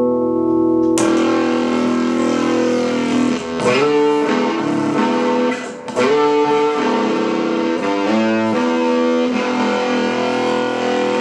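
Electric guitar played through a Barahunda fuzz pedal, ringing out sustained fuzzed chords and notes. A new chord is struck about a second in, the notes change several times, and there is a brief drop just before the middle.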